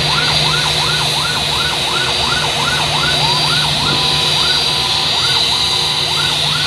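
Airport fire truck siren wailing fast, its pitch sweeping up and down about three times a second and turning uneven about halfway through, over a steady high whine and a low drone.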